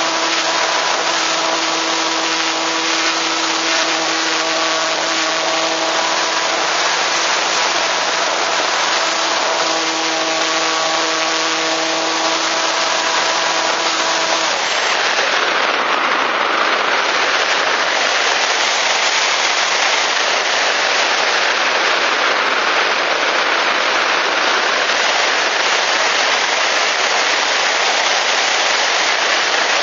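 Wind rushing over the onboard microphone of an Easyglider RC glider in flight, a loud steady hiss. For the first half the glider's electric motor hums at a steady pitch, then it cuts off suddenly about halfway through, leaving only the wind.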